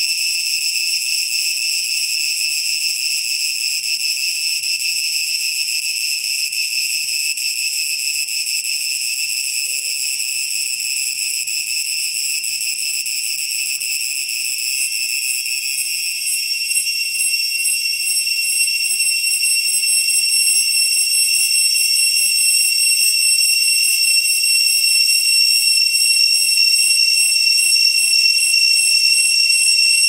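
Cicadas screaming: one loud, shrill, unbroken whine with ringing overtones. About halfway through, the tone takes on a faint pulsing flutter and grows slightly louder.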